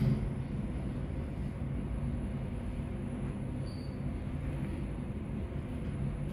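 Hyundai WBST 2 passenger elevator travelling upward at speed, heard from inside the car: a steady low rumble and hum of the ride.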